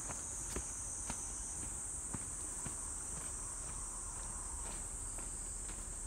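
A steady, high-pitched chorus of insects, with walking footsteps about two a second beneath it.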